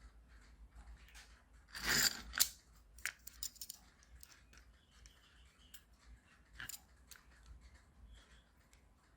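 Scattered small clicks and taps of small parts and tools being handled on a work surface, with a short, louder rasping rustle about two seconds in.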